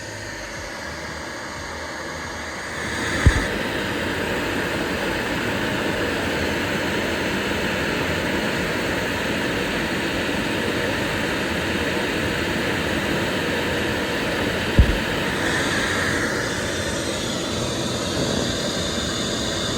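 CNC router spindle running a 45° V-bit at about 14,200 RPM, V-carving PVC sheet: a steady, loud, even whine and rush that gets louder about three seconds in. There is a short low thump twice, about three seconds in and again near fifteen seconds.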